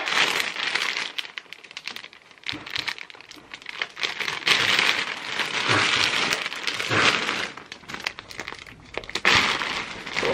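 Large clear plastic vacuum storage bag crinkling in repeated bursts as it is pulled and handled around rolled bedding.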